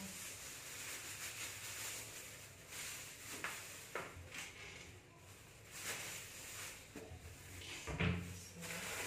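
Plastic grocery bags rustling and items being set down on a countertop, with a few light knocks and a louder knock near the end.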